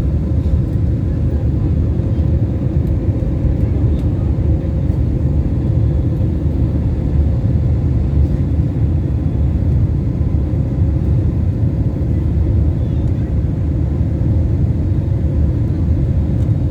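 Steady low rumble of an airliner's jet engines and rushing air, heard inside the cabin after takeoff, with a few faint steady whines above it.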